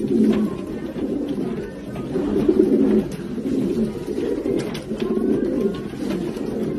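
Racing pigeons cooing, a steady run of overlapping low coos without a break.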